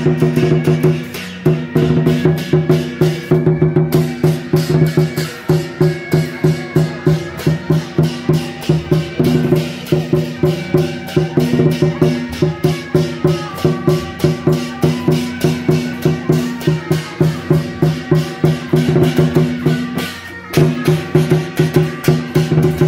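Taiwanese beiguan procession music: drums and percussion keep a fast, even beat under sustained low tones and a melody line above.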